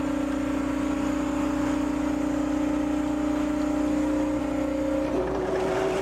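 Volumetric concrete mixer truck running, a steady engine and hydraulic drone with a constant hum; about five seconds in a second, higher hum joins it.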